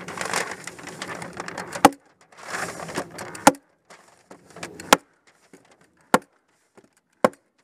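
Hammer tacker driving staples through Tyvek house wrap: five sharp strikes, about one every second and a half. Before the first two strikes, the wrap rustles as it is smoothed flat by hand.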